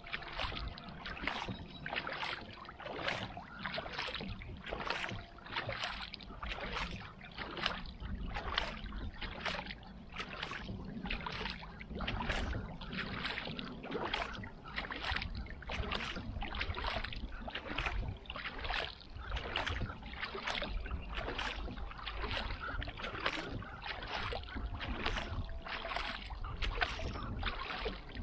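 Kayak paddle blades dipping and pulling through calm lake water in a steady, even rhythm, about one and a half strokes a second, each stroke a short splash and drip.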